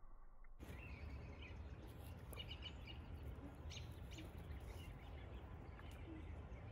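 Outdoor ambience with birds chirping in short, scattered calls over a low rumble, starting suddenly about half a second in.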